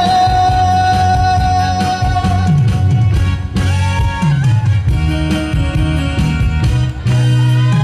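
A male singer holds one long sung note for about the first three seconds over the song's recorded band accompaniment, played through the stage PA speakers. After that the accompaniment carries on without the voice.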